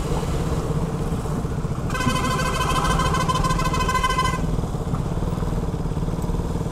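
Single-cylinder engine of a KTM RC 200 motorcycle running steadily while being ridden. About two seconds in, a high fluttering tone with several evenly spaced pitches sounds for about two and a half seconds.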